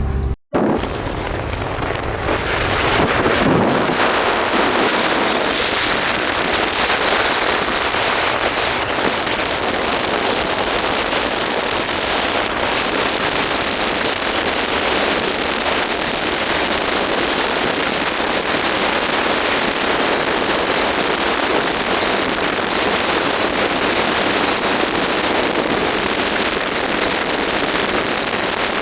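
Steady rushing wind noise on the microphone of a moving vehicle, after a brief cut-out just after the start.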